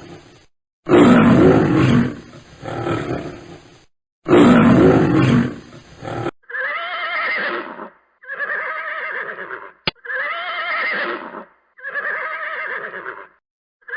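Animal calls: two long, loud, rough roars, then a run of four shorter calls with a wavering, quavering pitch, each about a second and a half long and evenly spaced. A sharp click falls between the third and fourth of these calls.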